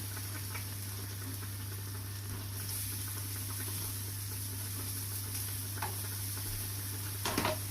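Aubergine slices sizzling steadily in a hot pan.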